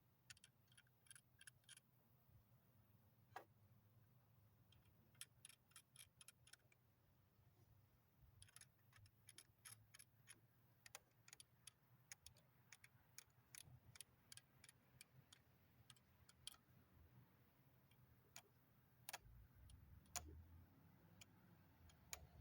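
Near silence broken by faint, irregular clicks and ticks in quick runs, with a few sharper single ticks: small plastic model-car parts and tools being handled during assembly.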